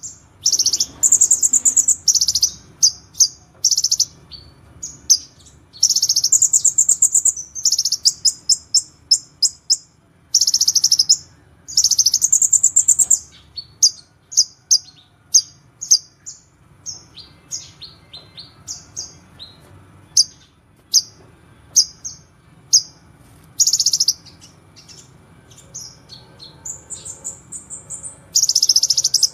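Kolibri ninja, a small sunbird, singing a fast, high-pitched song. Sharp single chirps alternate with dense rapid trills, which are loudest about a second in, around six seconds, from ten to thirteen seconds, and near the end. In between come sparser, quieter notes.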